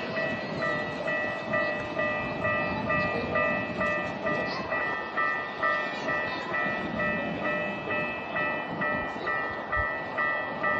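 Japanese level crossing's electronic warning bell ringing in a steady repeating clang of a little over two strokes a second, over a low rumble of train noise.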